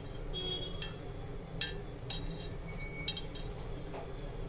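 Light metallic clinks from a stainless steel bowl as a hand mixes gram flour and water in it, about five short rings spread unevenly, the loudest about three seconds in.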